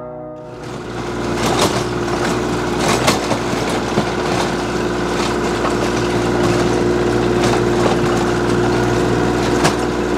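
Kioti compact tractor's diesel engine running steadily under load while its PTO drives a Terra-Force three-point rotary tiller churning the soil, with a few sharp knocks.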